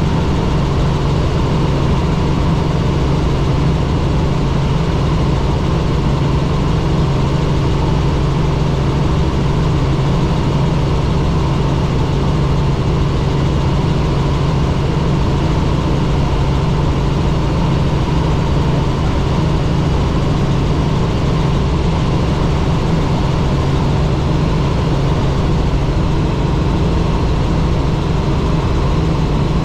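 Helicopter running steadily in flight: a constant engine and rotor noise with a steady low hum that does not change.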